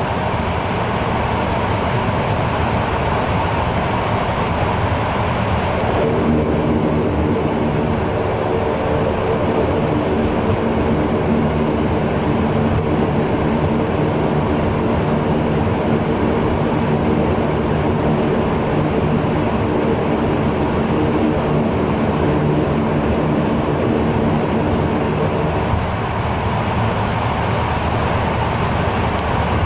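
Saab 2000's Rolls-Royce AE 2100 turboprop and six-blade propeller running at taxi power, heard from inside the cabin as a steady drone. About six seconds in the hiss eases and a hum of several steady tones comes in, fading again near the end.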